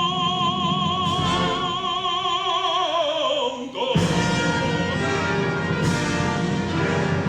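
Operatic voice singing a long high note with a wide vibrato that slides downward, then a symphony orchestra comes in loudly about four seconds in.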